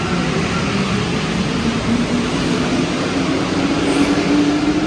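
Rubber-tyred metro train's traction motors whining in a steadily rising pitch as the train accelerates, over a steady running rumble.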